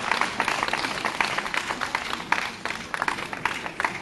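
Audience applauding, with many irregular hand claps.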